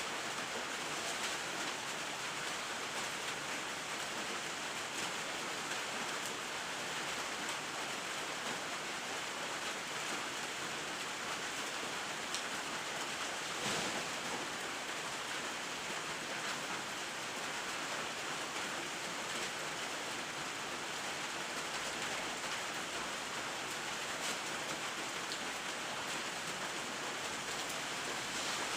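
Steady rain falling, a continuous even hiss with faint scattered drips.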